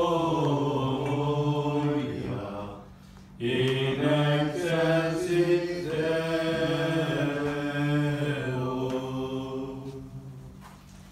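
Voices singing a slow liturgical chant, with long held notes in two phrases and a brief breath about three seconds in. The second phrase fades out near the end.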